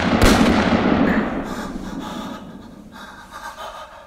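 Gunshot sound effect: a sharp crack with a long echoing tail that fades away over about three seconds, followed by faint heavy breathing.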